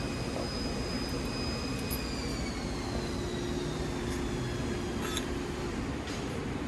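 Steady machine noise with a high whine that slowly falls in pitch, and a couple of light clicks near the end.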